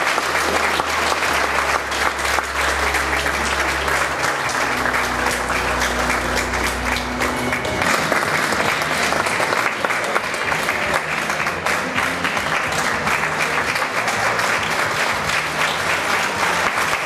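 Audience applauding steadily, with backing music underneath that stops about halfway through.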